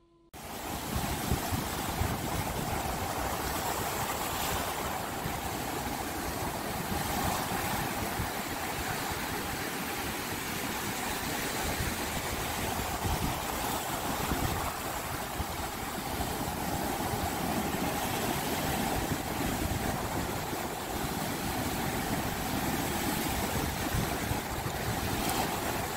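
Ocean surf breaking and washing up the shore in a steady rush, with wind rumbling on the microphone.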